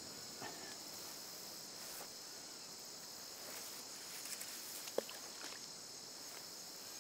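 Steady high-pitched insect chorus, with one short splash about five seconds in as the thrown bait lands in the water.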